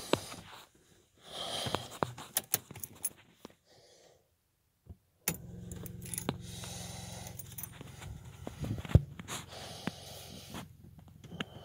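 Keys jangling at the ignition, then about five seconds in the engine turns over for a cold start: a steady low rumble, with one sharp knock about nine seconds in.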